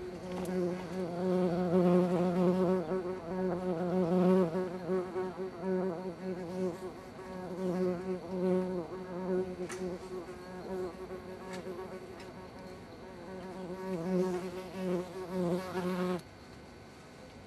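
White-tailed bumblebee buzzing at the entrance of its ground nest, a steady pitched buzz that swells and fades and cuts off abruptly near the end.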